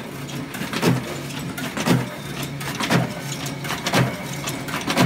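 James Burn automatic punching machine running, its die striking about once a second over the steady hum of its motor and sheet feed.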